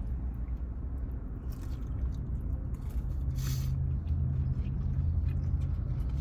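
Low steady rumble of a car idling, heard inside the cabin. About three and a half seconds in there is a short burst of eating noise.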